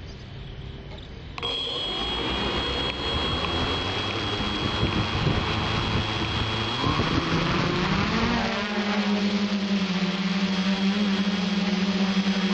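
A quadcopter's motors and propellers, heard close from its onboard camera, start suddenly about a second and a half in and run rough and uneven. Around seven to eight seconds in they rise in pitch as the craft lifts off, then settle into a steady propeller hum.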